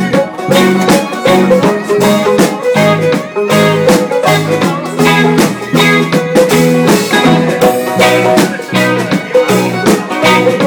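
Live band playing loudly: electric guitar, bass and drum kit keeping a steady beat, with a violin and a long-necked lute in the mix.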